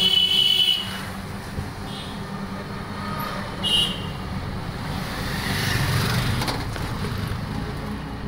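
Traffic and engine noise heard from inside a moving tempo (shared rickshaw): a steady low drone with road noise. There is a short high-pitched beep at the start and another a little before four seconds in.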